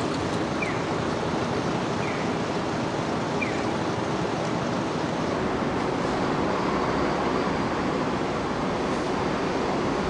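Steady city ambience: a constant, even roar of distant traffic, with four short, faint, high chirps in the first few seconds.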